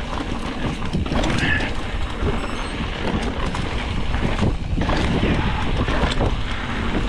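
Mountain bike riding down a rough dirt trail: tyre noise with a constant clatter of knocks and rattles from the bike, under wind on the microphone.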